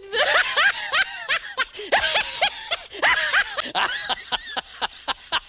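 A person snickering and laughing in a steady run of short, rising-and-falling bursts, with a few sharp clicks between them.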